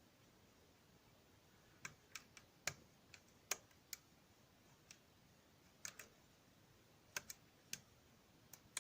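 Lock pick working the pin stacks of an Abus Pfaffenhain V14 pin-tumbler lock under tension: scattered sharp metallic clicks, bunched in two flurries with quiet gaps between.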